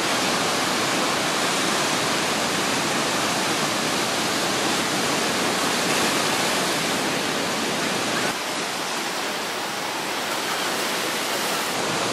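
Ocean surf breaking, a steady wash of white water with no distinct individual crashes; it drops a little in level about eight seconds in.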